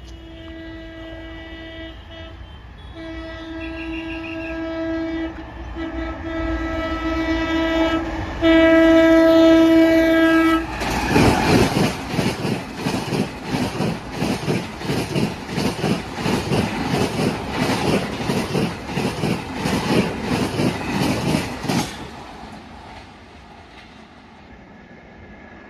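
WAP-7 electric locomotive's horn sounding in four long blasts, each louder as the train approaches, then the AC double-decker express rushing past at speed with a rapid clatter of wheels over rail joints for about eleven seconds before fading away.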